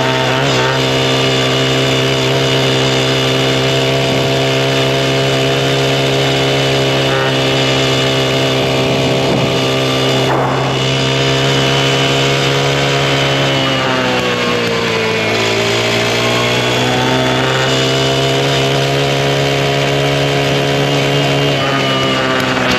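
Mini bike's small engine running steadily under way. Its pitch dips about two-thirds of the way through, then climbs back, with another small dip near the end.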